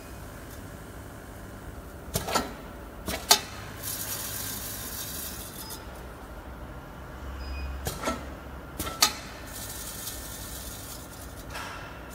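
Seed counting machine running with a steady low hum. Twice, a few sharp clicks and knocks of the mechanism come in quick succession, each group followed by a couple of seconds of rushing hiss as pelleted seeds pour through.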